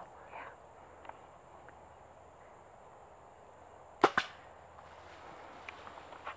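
An Xpedition compound bow being shot at a whitetail buck: two sharp cracks about a fifth of a second apart, about four seconds in. Faint rustling before that.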